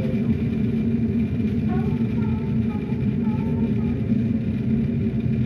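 Steady low hum running throughout, with a faint distant voice about two seconds in.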